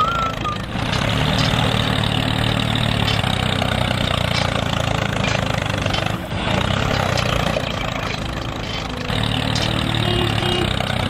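Engine sound of a toy tractor running steadily, like an idling diesel, with brief dips just under a second in and about six seconds in.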